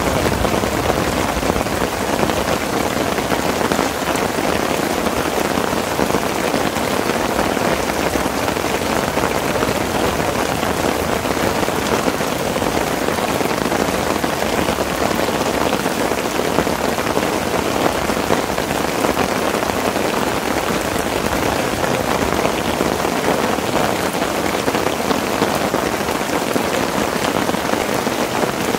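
Heavy rain falling steadily on the tent, heard from inside, a dense even patter of drops with no letup.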